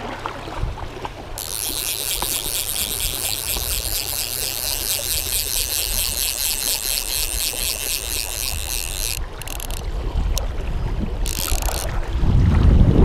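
Fly reel's click ratchet buzzing in a fast, even run of clicks as line goes on or off the spool. It starts about a second in, stops abruptly some eight seconds later, and comes back briefly near the end, over the steady rush of the river.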